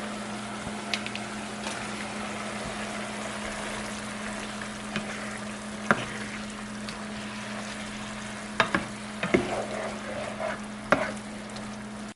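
Chicken adobo cooking in its soy sauce and vinegar in a pan, with a steady sizzling hiss over a low hum. A utensil stirring it knocks against the pan about six seconds in, several times near nine seconds and once near eleven seconds.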